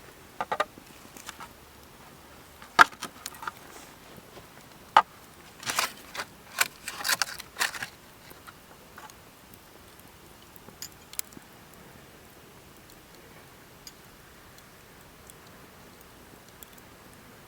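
Wood fire crackling: irregular sharp pops and snaps, thickest in the first half and sparse after, over a faint steady hiss.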